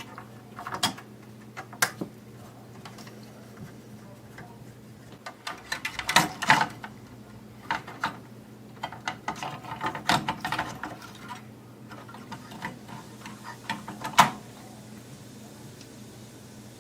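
Irregular clicks and knocks of screws, screwdriver and plastic parts as a VHS/DVD combo player's casing is screwed back together, with a busy patch of rattling in the middle and one sharp click near the end, over a faint steady hum.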